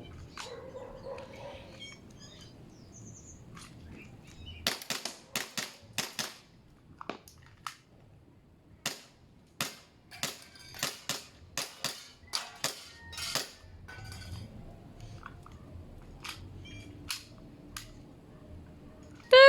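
Airsoft Glock 17 Gen5 pistol firing a long string of quick, sharp shots, roughly twenty over nine seconds, in fast groups with short pauses, followed by a few scattered clicks. A loud electronic beep sounds at the very end.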